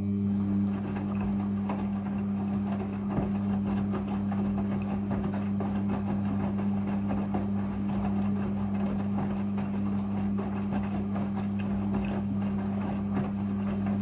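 Front-loading washing machine on its rinse cycle, the motor turning the drum in one long stroke: a steady motor hum under the swish and patter of wet laundry tumbling in the drum.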